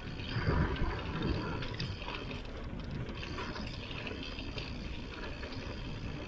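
Mountain bike riding down a dirt trail: steady tyre and ground noise with the bike's rattles and clicks over the bumps.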